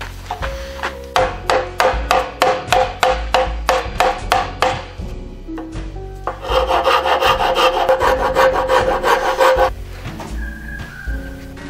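Hand rasp or file scraping the end of a red hardwood piece held in a vise. It makes a run of even strokes, about three a second, then a quicker, continuous stretch of rasping for about three seconds. Quiet background music plays underneath.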